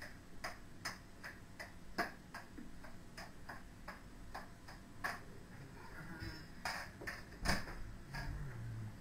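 Plastic juggling clubs clacking into the hands as they are caught, a regular click about two to three times a second, with a few louder knocks.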